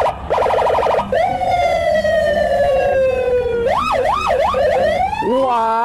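Electronic police car siren cycling through its tones: a burst of rapid pulsing chirps, then a long slowly falling tone, then three quick up-and-down wails, and a rising tone near the end.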